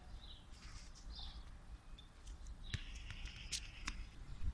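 Quiet outdoor ambience: a low steady rumble with a few faint high chirps, and several short light knocks in the second half, the last one the loudest, near the end.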